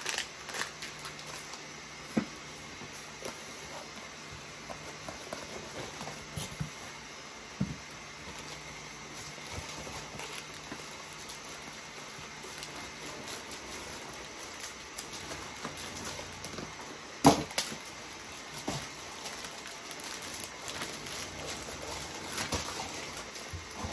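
Plastic packaging rustling and crinkling while a boxed unit is unpacked from black foam inserts, with scattered soft knocks and clicks of handling. One sharper knock comes about two-thirds of the way through.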